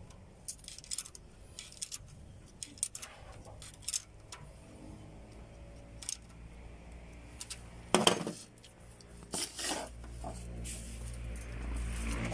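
Metal hand tools clinking and tapping on engine parts in a string of sharp clicks, with one louder clank about eight seconds in. A low steady hum rises near the end.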